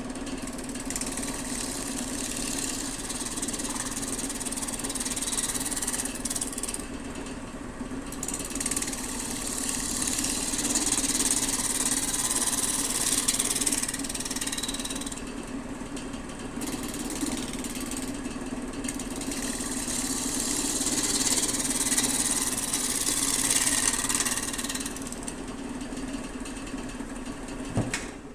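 Wood lathe running while a turning tool cuts the spinning driftwood burl: a steady motor hum under a hiss of cutting. The hiss stops briefly three times as the tool comes off the wood, and the sound dies away at the very end as the lathe is stopped.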